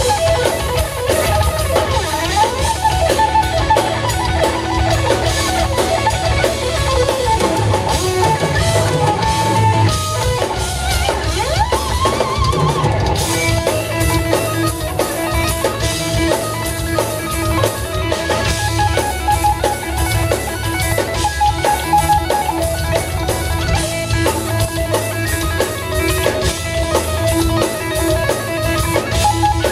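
Live instrumental rock from an electric guitar, bass and drum kit: the electric guitar plays a lead line with bends over a steady drum beat, then moves into a fast repeated figure about halfway through.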